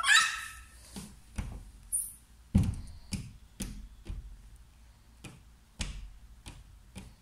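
A baby's hands slapping a glass sliding door: about a dozen irregular thuds, each with a low thump. A short high squeal from the baby fades out at the very start.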